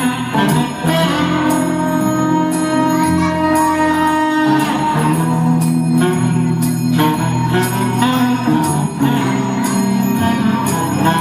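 Music with jingling bells over sustained pitched notes.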